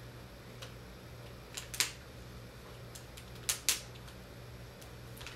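Sharp plastic clicks and small ticks from handling a laptop's LCD panel and its taped video connector. There are four loud clicks, two of them in quick succession midway, over a faint steady hum.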